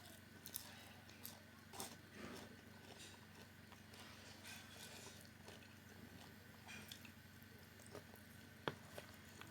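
Faint sounds of a person eating: soft chewing and biting with scattered small clicks and mouth smacks.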